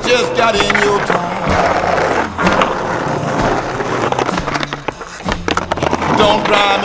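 Skateboard wheels rolling on rough asphalt, with several sharp clacks and knocks of the board, mixed with a blues song with a steady bass line and wavering lead notes.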